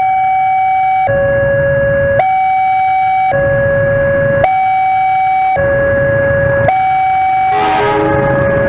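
Railway level-crossing warning alarm sounding as a train approaches: an electronic two-tone signal alternating between a higher and a lower tone, each held about a second. About eight seconds in, a brief burst of noise with other tones joins it.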